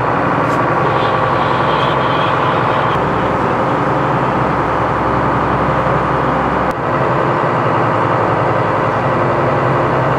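Twin Iveco marine diesel engines of a rescue lifeboat running steadily under way, heard from inside the wheelhouse as a loud, even drone. The sound shifts abruptly about three seconds in and again near seven seconds.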